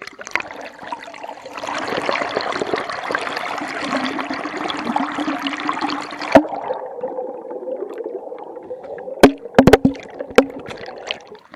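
Water splashing and rushing close to the microphone, cutting off sharply about six seconds in. It is followed by a muffled, lower water sound with several sharp knocks near the end.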